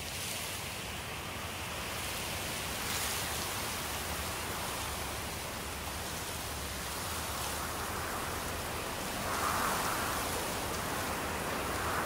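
Wind rushing steadily through foliage and grass, swelling in a brief gust near the end.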